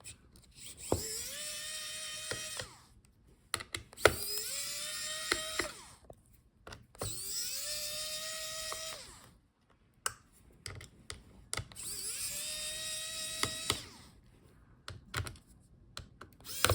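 Small electric screwdriver motor spinning up with a rising whine, running steadily for about two seconds and winding down, four times over, as it backs out the screws holding a laptop's heatsink. Small clicks come between the runs.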